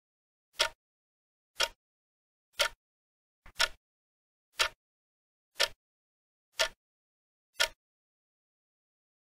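Countdown-timer ticking sound effect: sharp clock ticks about once a second, eight in all, stopping near the end.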